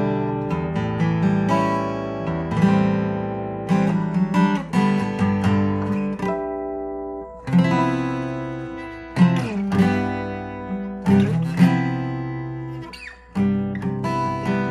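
Seagull S6 Original steel-string acoustic guitar, with a solid cedar top, cherrywood back and sides and medium phosphor bronze strings, played solo: picked notes and ringing chords. The sound dies away briefly twice, and there are a few sliding notes.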